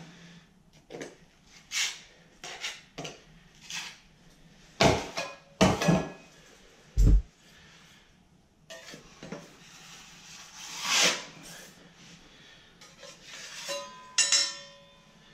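Steel drywall knife scraping and knocking against a stainless steel mud pan, working drywall mud: a string of short scrapes and clanks, with a few heavier knocks and a thump about halfway through and a ringing metallic clang near the end.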